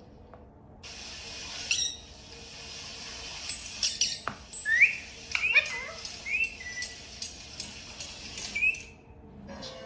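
Parrot giving a string of short rising chirps and whistles, several in a row from about halfway through, over a steady hiss, with a few sharp clicks among them.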